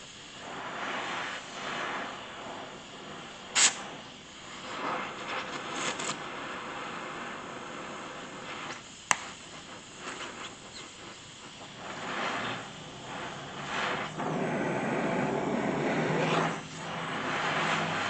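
Gas torch flame hissing as it heats a weld-warped steel plate to straighten it, getting louder toward the end. Two sharp metallic clicks, one a few seconds in and one about halfway.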